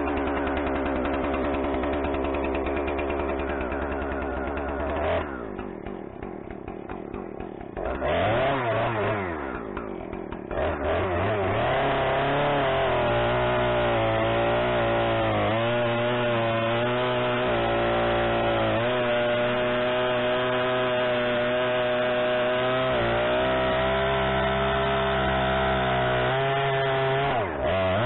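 Two-stroke Husqvarna chainsaw with a 24-inch bar cutting into a log. It runs hard, eases to a lower, quieter idle about five seconds in and revs briefly around eight seconds. From about ten seconds on it is held at full throttle, its pitch sagging and recovering under the load of the cut.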